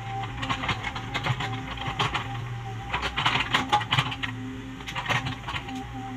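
Komatsu PC75UU mini excavator's diesel engine running steadily, with rapid, irregular clicking and clattering from the working arm and bucket, busiest in the middle.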